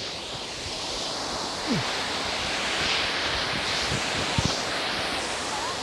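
Steady, dense rush of a waterfall pouring into a pool.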